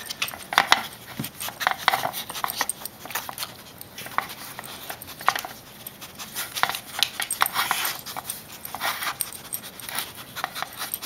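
Two huskies nosing tennis balls around the cups of a metal muffin pan to get at hidden treats: irregular light taps, clicks and knocks of balls and muzzles against the tin, mixed with dog sniffing.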